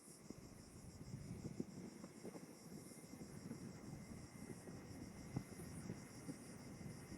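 Faint outdoor ambience: wind buffeting the microphone with small crackles, over a steady, faint chirping of insects high up.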